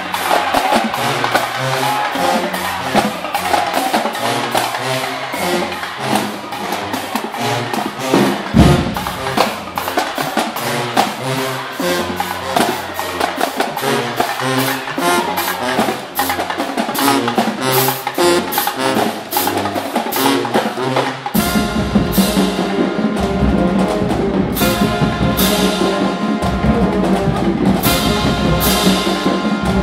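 Marching drumline playing a fast cadence of snare and tenor strokes over stepped, pitched bass-drum hits. About two-thirds of the way through, the sound fills out with a heavier low end and held chords.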